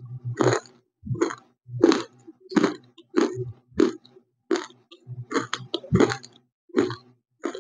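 Close-miked chewing of a crunchy white slate (nakumatt), a short sharp crunch about every two-thirds of a second.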